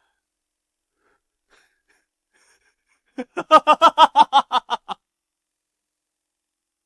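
A person's voice in a quick run of about a dozen short pulses, lasting about two seconds and starting about three seconds in.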